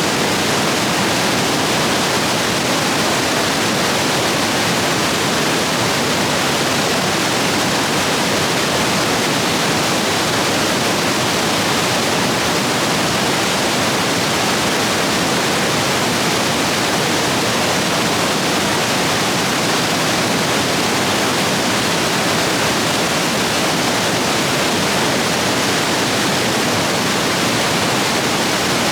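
Stream rapids running high after heavy rain: a steady, loud rush of water.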